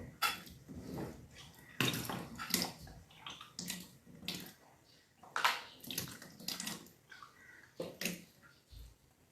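Water being vomited up during kunjal kriya (vaman dhauti), the yogic cleanse in which a large drink of water is brought back up by pressing fingers on the back of the tongue. It comes in about ten short splashing gushes, roughly a second apart.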